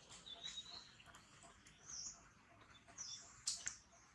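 Faint, scattered high chirps of small birds, including a thin high whistle early on, with one sharp click about three and a half seconds in.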